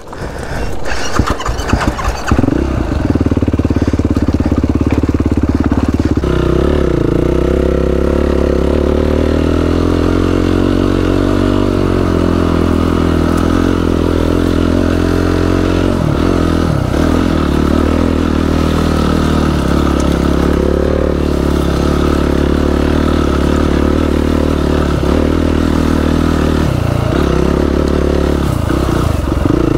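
Yamaha YFZ450R quad's single-cylinder four-stroke engine under way through an FMF exhaust with the baffle removed, loud and raw. The note rises and falls with the throttle and dips briefly now and then. It is quieter and uneven for the first couple of seconds, then runs steadily loud.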